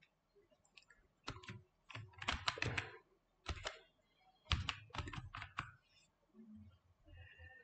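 Typing on a computer keyboard: several quick runs of key clicks as a word is typed, stopping a little before the end.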